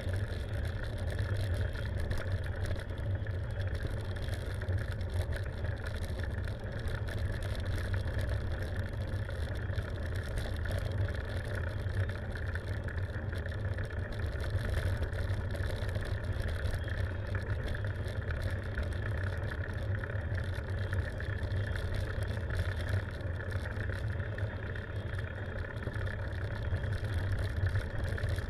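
Steady low rumble of wind on the microphone and tyre noise from a bicycle rolling along an asphalt road, with no break or change.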